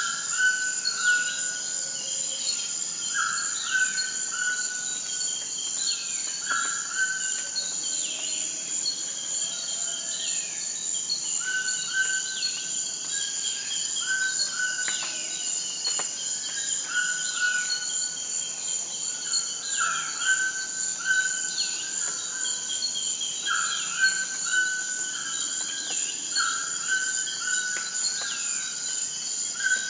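Steady high-pitched insect chorus, with birds singing short repeated notes and downward-sweeping calls over it.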